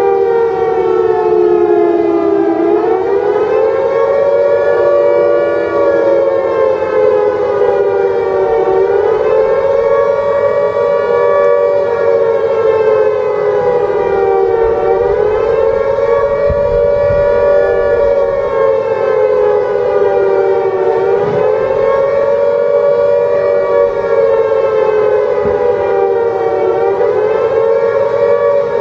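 Loud siren wailing, its pitch rising and falling slowly in long repeating sweeps of about six seconds.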